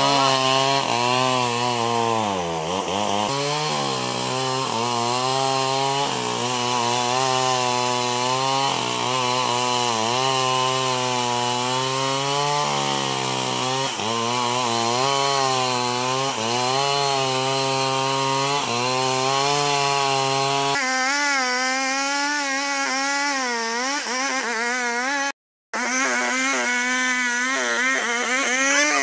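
An old two-stroke chainsaw cutting albasia (sengon) timber, its engine note sagging and recovering again and again as the chain bites into the wood, with one deep drop in speed a few seconds in. The sound breaks off for a split second near the end.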